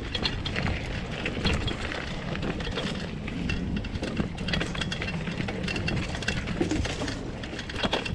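Mountain bike clattering over a rough dirt trail: many small rattles and knocks over a constant low rumble.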